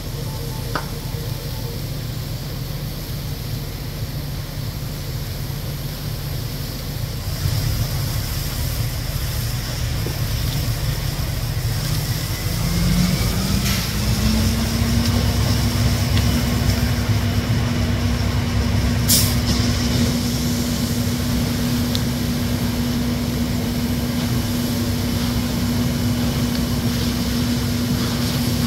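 A heavy truck engine, most likely the fire engine's, runs with a steady low drone, then speeds up about halfway through and holds a higher steady pitch. A steady hiss runs alongside, and there is a single sharp pop about two-thirds of the way in.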